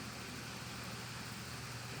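Steady hiss with a low hum underneath, even and unchanging: room background noise, with no snore heard.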